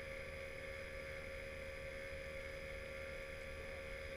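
A steady hum with a few held tones and no sudden sounds.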